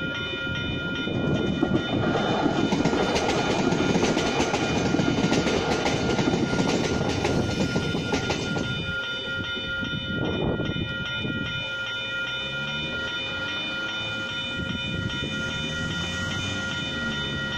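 Level-crossing alarm bells ringing steadily while an electric commuter train runs past; the train's rumble and wheel noise are loudest for the first several seconds and fade out before the middle. Road vehicles are then heard moving over the crossing.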